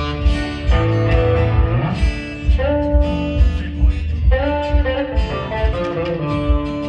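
Live contra dance band playing a tune during its sound check: a steady low beat under a melody of held notes, some of them sliding up into pitch.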